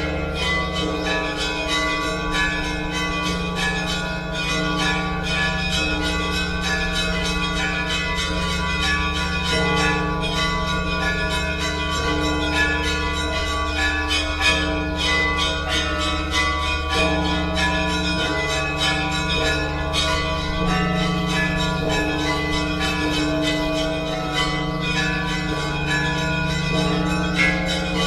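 Russian Orthodox church bells ringing together in a continuous peal. Many bells are struck in rapid succession, with the deep bells sounding steadily beneath the quick strikes of the higher ones.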